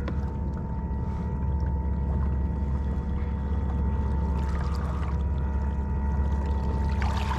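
Bixpy J-2 electric kayak motor running at a steady speed: a constant whine over a low hum. Water swishes along the hull briefly about four and a half seconds in and again near the end.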